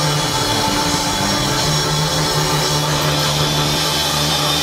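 Live indie rock band on stage: distorted electric guitars and keyboard holding a loud, steady wash of sustained chords, with no clear drum beat.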